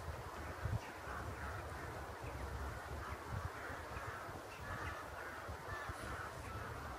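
A flock of crows cawing, many short calls overlapping throughout.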